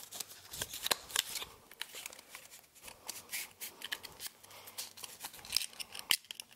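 A deck of playing cards and its paperboard tuck box being handled as the deck is put back in the box: irregular rustling, scraping and small sharp taps of card stock.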